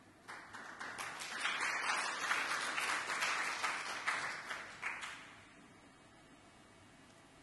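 Audience applauding: many hands clapping, swelling at first and dying away about five seconds in.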